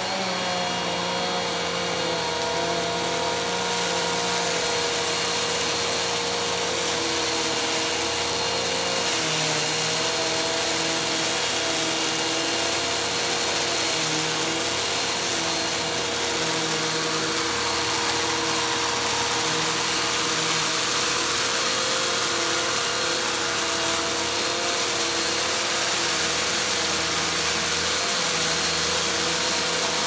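Bissell upright vacuum cleaner running steadily on carpet, a motor whine over a strong rush of air, pushed in slow passes to pick up spilled rice and grit.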